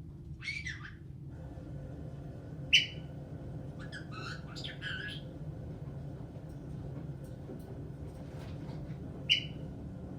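Caique parrot calling: a short falling call, then two loud, sharp single squawks several seconds apart, with a quick run of chirps between them. A steady low hum runs underneath.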